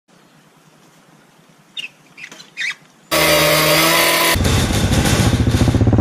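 Three short calls over a quiet background, then, about three seconds in, a Suzuki quad bike's engine starts up loud and close. About a second later its steady note turns into a fast pulsing rumble.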